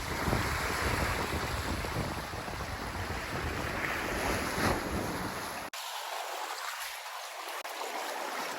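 Wind buffeting the microphone over the wash of sea waves on the shore. A little past halfway the low rumble cuts off suddenly, leaving a fainter steady hiss of surf.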